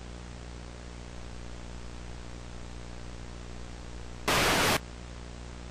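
Steady electrical hum with a faint hiss. About four seconds in comes a half-second burst of loud TV static that starts and cuts off abruptly.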